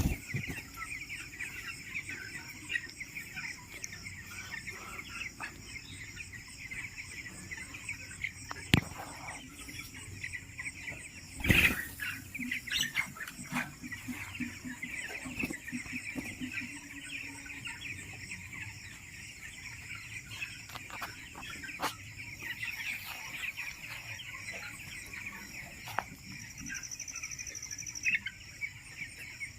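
A shed full of broiler chickens cheeping continuously in a dense chorus of small high calls. A couple of sharp knocks cut through, the loudest about a third of the way in.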